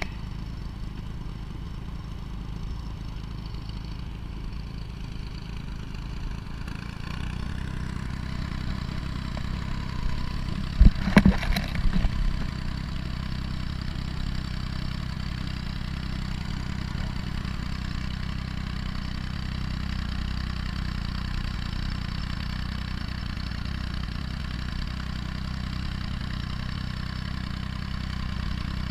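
Tractor engine running steadily while towing a boat up a sand beach, getting louder about seven seconds in, with a few sharp knocks and clatters about eleven seconds in.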